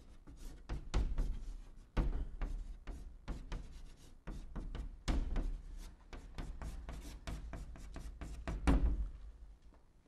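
Chalk writing on a chalkboard: a quick, irregular run of sharp taps and short scrapes as characters are written stroke by stroke, with some heavier knocks of the chalk against the board.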